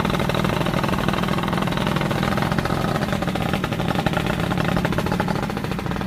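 Small motorcycle engine running steadily with a rapid even pulse, pulling two heavy log sections slung across the bike at walking pace.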